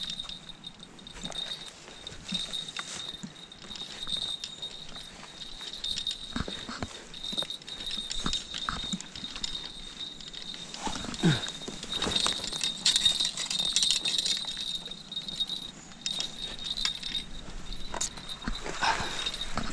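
Footsteps on mud, grass and rock and brushing through creekside reeds and branches while walking, heard as irregular scuffs and rustles. A steady high insect trill sounds underneath.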